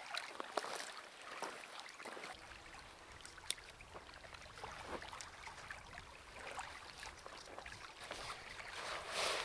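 Faint scattered light clicks and rustles, growing louder near the end.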